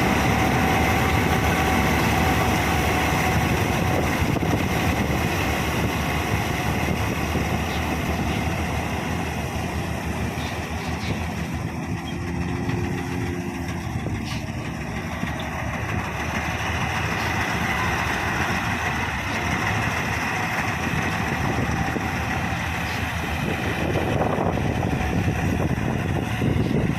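Combine harvester running with a steady engine and machinery noise.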